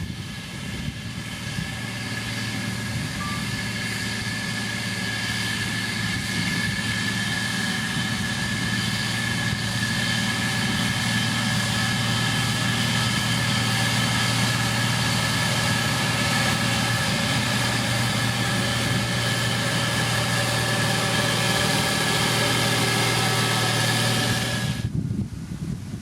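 Heavy road-construction machine's engine running steadily, with a low drone and a high whine, growing louder over the first dozen seconds; it cuts off abruptly near the end.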